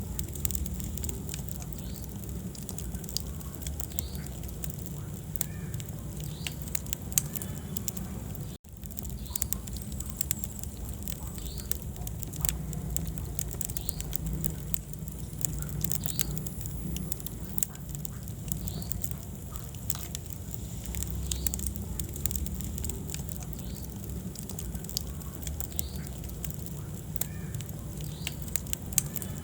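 Wood fire burning in a fireplace: steady low rumble of the flames with frequent sharp crackles and pops of the burning logs. The sound cuts out for a split second about eight seconds in.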